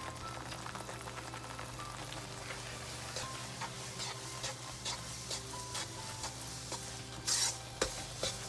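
A spatula stirring and scraping a thick rice-powder and sugar-syrup dough around a non-stick pan, with a soft sizzle, as extra roasted rice powder is worked in. A steady low hum runs underneath, and there is one louder scrape near the end.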